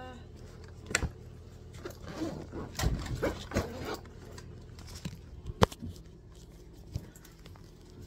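Diaper bag being packed and handled: rustling and scattered knocks, busiest between about two and four seconds in, with a sharp click a little past halfway.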